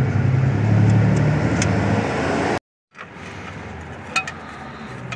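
A steady low motor hum, like a vehicle engine running, stops abruptly about two and a half seconds in. After it comes quieter background with a few light clicks of metal parts being handled.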